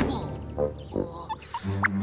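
Cartoon background music with short comic sound effects, quieter at first, with a steady low note coming in near the end.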